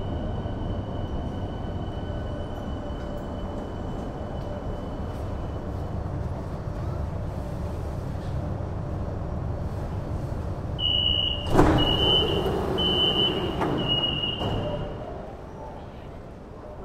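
Metro train rumbling as it pulls into a station, with a thin high whine that fades about six seconds in. About eleven seconds in the door warning signal beeps four times, with a loud thump as the doors move, and the rumble then drops away.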